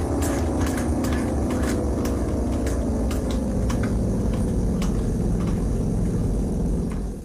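Synthesized Tokiwa/Yamaha first-generation music siren winding down, its tone sliding slowly lower over a low rumble with frequent clicks, then cutting off near the end.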